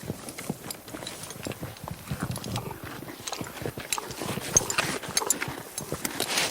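Horse hooves clip-clopping: a run of irregular, sharp knocks that grow louder over the second half.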